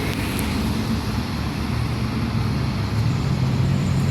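Road traffic with a large vehicle's engine running low, growing louder near the end as it approaches.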